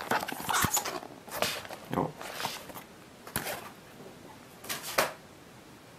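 Plastic packaging rustling and crinkling in short, irregular bursts as a trading-card collector's binder is handled, with a couple of light knocks on the wooden table.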